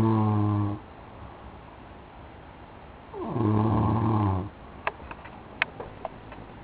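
Snoring: two long snores at a slow breathing rhythm, each a low note that rises at its start and then holds steady for over a second. The first ends about a second in; the second runs from about three to four and a half seconds in. A few faint clicks follow.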